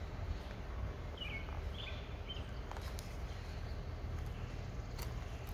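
Outdoor ambience with a steady low rumble, and a few short bird chirps between one and two and a half seconds in; a couple of faint ticks come later.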